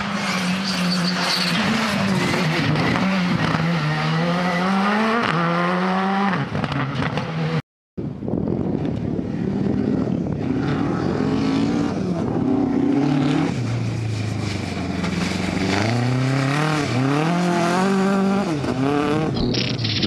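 Rally car engines revving hard at full throttle. The pitch climbs through each gear and drops back at each shift. A hard cut about eight seconds in leads to a second car, a Ford Escort rally car, revving the same way.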